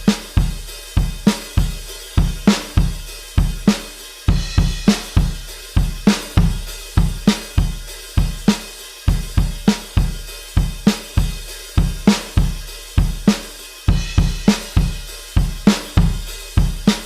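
Drum kit playing a solo alternative rock drum loop: kick drum, snare and hi-hat with cymbals in a steady, evenly repeating beat, with no other instruments.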